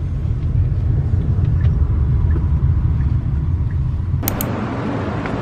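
Steady low road rumble inside a moving taxi's cabin. About four seconds in it breaks off abruptly and gives way to an even hiss of outdoor street traffic.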